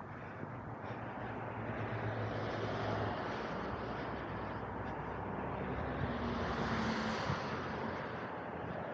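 A road vehicle going past, its rushing noise swelling to a peak about seven seconds in and then easing off.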